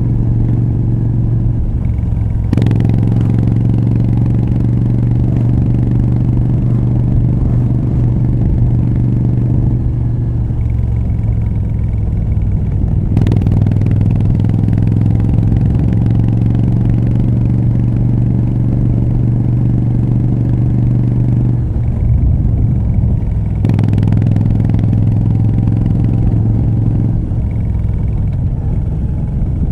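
Moto Guzzi V7 III Rough's air-cooled 744 cc transverse V-twin running through short Mistral exhausts while riding, holding a steady low note. The note breaks off briefly and picks up again about three times as the throttle is closed and reopened.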